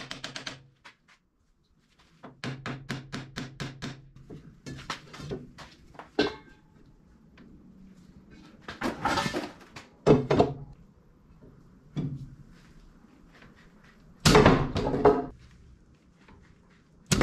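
Hand-tool work on a diesel engine's cylinder head. A brief rapid mechanical rattle comes first, then scattered metal clanks and knocks, with the loudest heavy clunk near the end.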